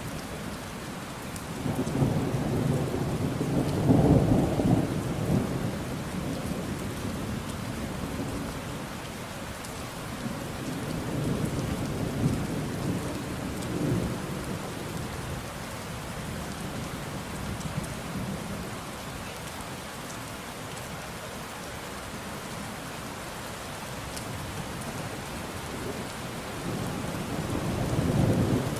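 Steady rain with thunder rumbling over it: a long rumble swells a few seconds in, another comes midway, and a third builds near the end.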